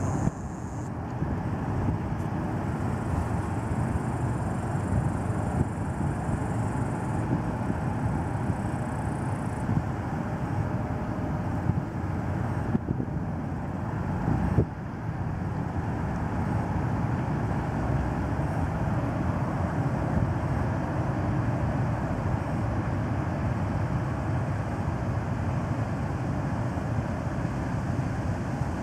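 Steady low rumble of a small cargo ship's diesel engine as the ship creeps slowly into a canal lock. A single sharp knock about halfway through.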